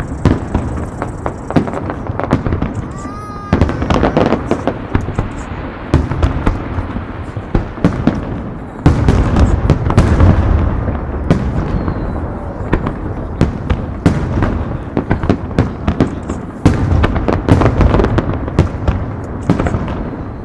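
Aerial fireworks in a rapid star mine barrage: many shell bursts following close on one another, deep booms mixed with sharp cracks, coming in surges of heavier volleys.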